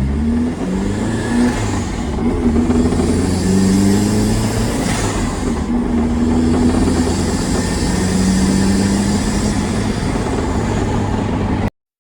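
Turbocharged Nissan SR20DET four-cylinder engine of a swapped GAZ-24 Volga running and revving, its pitch stepping up and down, with a thin high turbo whistle rising and falling twice. The sound cuts off suddenly near the end.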